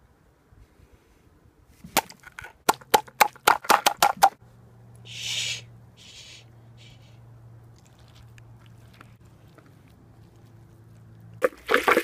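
A bare hand slapping and smashing a plate heaped with burger, sauces and food mush: a quick run of about a dozen wet slaps, with another burst of slaps near the end. A short hiss comes between the two bursts.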